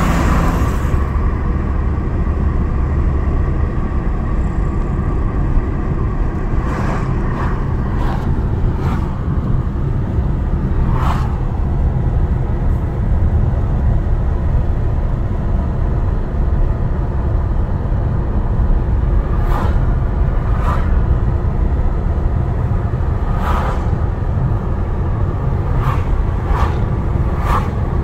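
Steady low rumble of road and engine noise inside a moving Mercedes-Benz car, with a few short clicks now and then.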